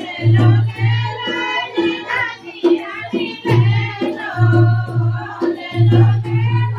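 Group of women singing a Hindi jachcha folk song (a song for a newborn) in unison, with a dholak hand drum beating a steady rhythm and hands clapping along. The deep drum strokes ease off for a couple of seconds in the middle, then return.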